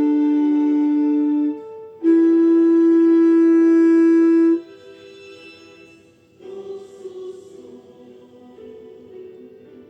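Clarinet holding long, steady notes: one note ends about a second and a half in, then a slightly higher note sounds for about two and a half seconds. After it comes much quieter music with several notes sounding together.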